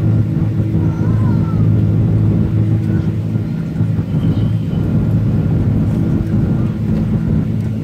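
Airbus A330 cabin noise during the climb after takeoff: the jet engines and airflow make a steady, loud low drone with a constant hum.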